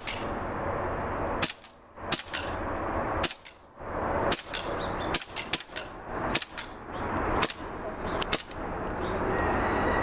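M9 Beretta green-gas blowback airsoft pistol firing about a dozen sharp shots at uneven intervals, some in quick pairs and triplets.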